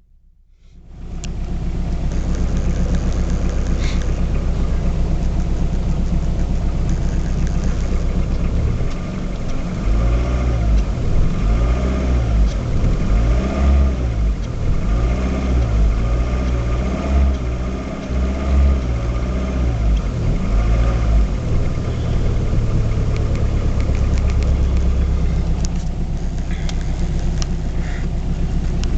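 BMW E36 318tds four-cylinder turbodiesel engine running. From about nine seconds in, a wavering, pulsing sound rises and falls for roughly thirteen seconds, then the engine steadies again. This fits the owner's complaint of an annoying noise he hears at times at idle from the front of the engine, whose cause he has not found.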